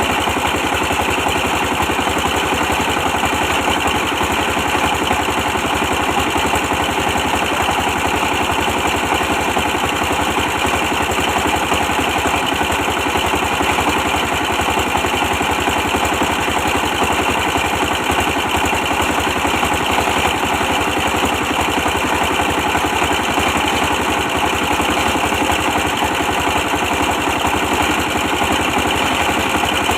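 A 24 hp stationary diesel engine running steadily, with a fast, even pulse.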